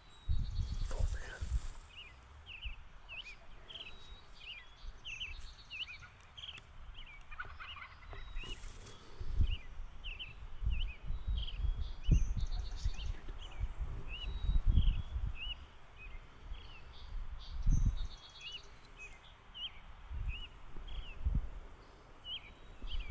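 Wild birds chirping in many quick, repeated short notes, over intermittent low rumbles.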